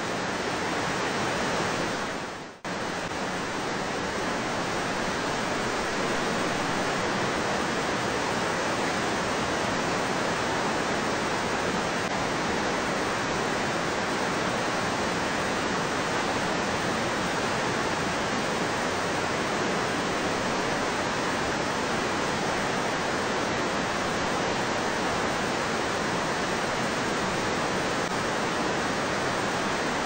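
Mountain stream water rushing over rocks, a loud, steady hiss of moving water close to the microphone. It drops out briefly about two and a half seconds in, then carries on unchanged.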